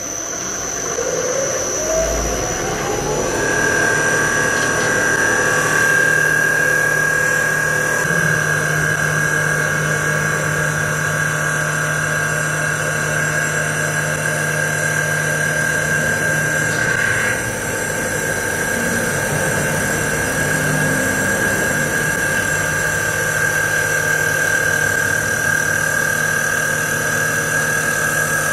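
CNC wood lathe spindle spinning up with a rising whine over the first few seconds. It then runs at speed with a steady high whine and a rough hiss as the cutting tool shaves the outside of a wooden cup blank.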